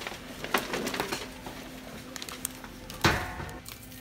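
Kitchen clatter: dishes and utensils clinking in a few quick knocks in the first second or so, then one louder clunk about three seconds in that rings briefly, with faint background music.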